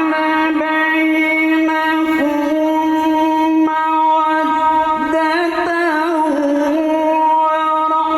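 A man chanting a Qur'an recitation in the melodic tilawah style, holding one long, steady note with a brief ornamented run of wavering pitch about two-thirds of the way through.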